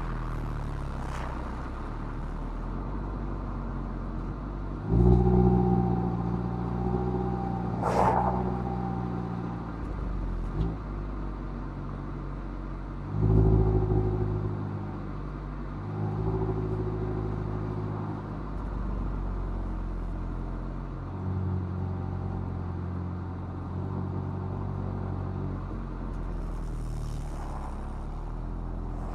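Mazda MX-5's four-cylinder engine through its stock exhaust, driving uphill. The engine note swells louder about five and thirteen seconds in and eases off between, shifting pitch a few times as the throttle and gears change.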